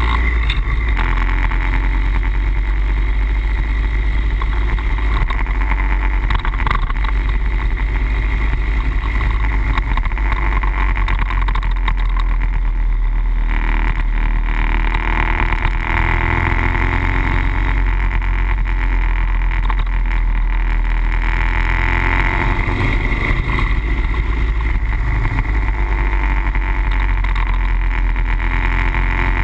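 Harley-Davidson Wide Glide's V-twin engine running steadily at road speed, mixed with heavy wind rush on the bike-mounted camera's microphone.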